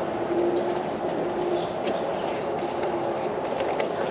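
Crickets and other insects chirring steadily over a broad, steady rushing noise, with a faint low hum that stops about three seconds in.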